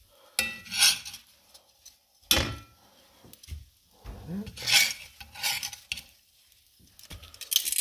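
Metal tongs clinking and scraping against a cast-iron skillet as slices of pan-toasted bread are lifted out, a handful of separate short clatters with quiet between them.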